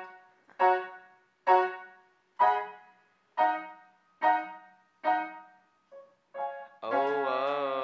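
Upright piano played slowly: single chords struck about once a second, each left to ring and fade. Near the end a louder held tone with a wavering pitch takes over.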